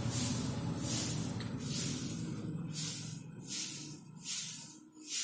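A dog's breathing in regular hissing huffs, a little more than one a second, over a low hum that fades out about halfway through.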